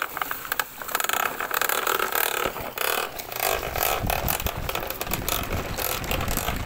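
Large plastic toy dump truck pushed by hand over grass and dirt, its plastic wheels and body rattling in an irregular clatter of small clicks as it rolls. A low rumble joins about halfway through.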